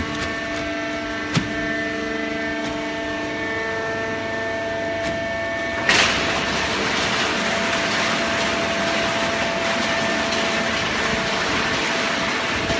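Hydraulic carton baling press running, its motor and pump giving a steady hum with several fixed tones and a single knock. About six seconds in, a sudden loud onset is followed by a louder, even rushing noise, likely the machine moving into a working stroke.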